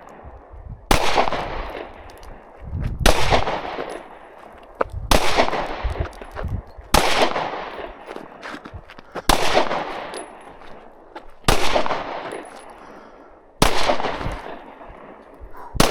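Single pistol shots fired slowly, about one every two seconds, eight in all, each trailing off in echo.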